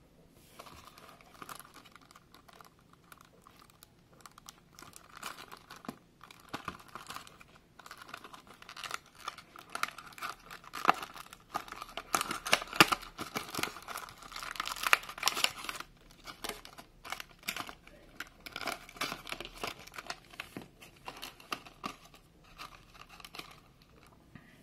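A fidget spinner's card box and clear plastic blister tray being handled and opened by hand: packaging crinkling and crackling, rustling and clicking throughout. It is loudest in the middle, as the box is pulled open.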